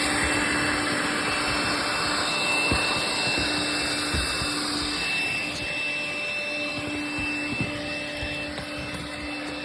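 Household vacuum cleaner running steadily with a whine, growing somewhat fainter in the second half.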